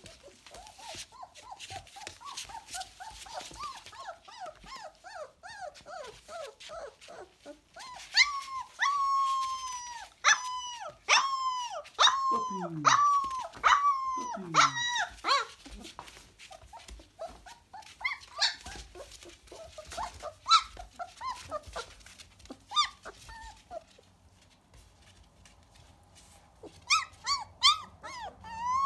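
Young puppies whimpering and squealing. First comes a string of soft, high squeaks; from about eight seconds in there is a run of loud, pitched crying yelps. Scattered squeaks follow, and one more loud cry comes near the end.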